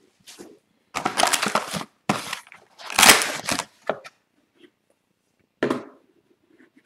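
Cardboard lid of a retail trading-card box being torn open: a few rough tearing and crinkling bursts, the loudest about three seconds in, then one shorter rustle near the end.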